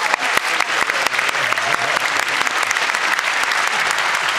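A large audience applauding, with dense, steady clapping throughout.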